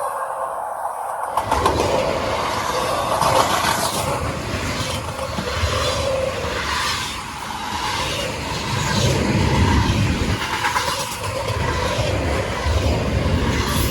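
Freight train rolling past: a steady low rumble with a regular clatter of wheels. The sound changes abruptly about a second in.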